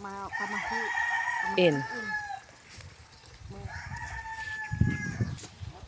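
Rooster crowing twice, each crow a long held call of about two seconds, with a few low thumps near the end.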